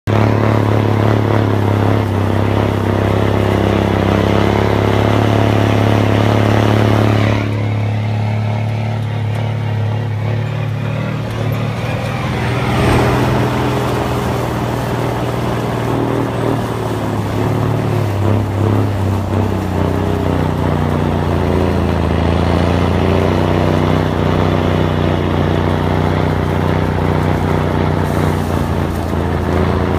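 Diesel engine of an M920 6x6 military semi-tractor running steadily under load as it pulls a manure tanker through a field. Its note eases about seven seconds in and picks up again about five seconds later.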